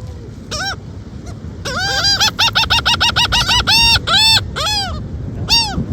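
Gull calling: one squawk, then a fast run of short, arched, honking notes that slows into a few longer drawn-out calls near the end.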